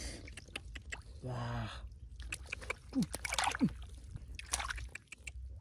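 Shallow water splashing and sloshing in a flooded field during hand fishing, with scattered small clicks and a few short voice sounds, two of them falling in pitch.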